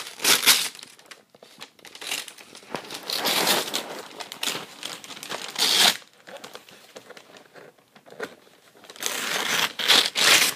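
Gift wrapping paper being ripped and crumpled by hand in irregular bursts of tearing and crinkling, loudest just after the start, around six seconds in, and in a longer stretch near the end.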